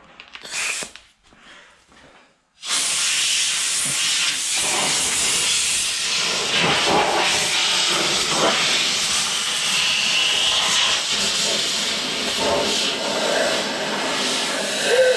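Compressed-air blow gun hissing: a short burst near the start, then a steady blast from about three seconds in. It is blowing rinse water off a vehicle frame to dry it before painting.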